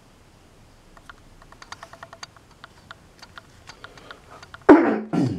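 Faint, irregular light clicks, several a second, then two short, louder sounds close together near the end.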